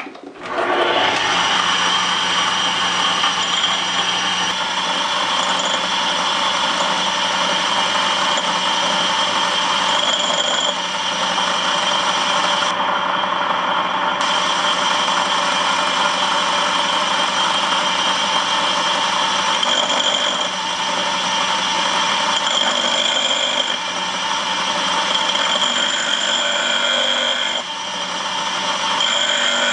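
The motor-driven spindle of a homemade tool-and-cutter grinder running, with a carbide lathe tool bit being ground against the wheel. It starts suddenly about a second in, then gives a steady grinding noise with a high whine, whose tones come and go as the bit is worked across the wheel.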